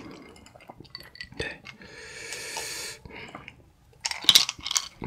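Someone sipping and swallowing beer from a glass, with a breathy rush of air about two seconds in and a cluster of sharp clicks near the end.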